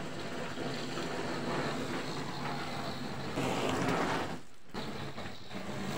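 Ground firework spraying sparks with a steady hiss that swells about three and a half seconds in, with wind on the microphone.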